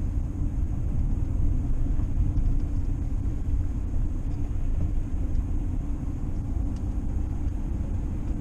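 A vehicle driving, with a steady low rumble of road and engine noise.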